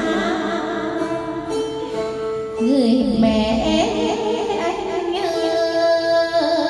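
Music: a melody that bends and wavers in pitch over steady held notes.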